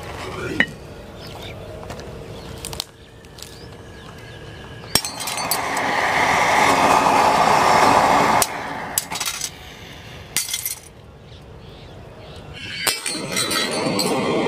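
Diwali anaar (fountain firework) spraying sparks under an upturned glass jar: a steady hiss that is loudest through the middle, broken by abrupt cuts, with a few clinks of glass.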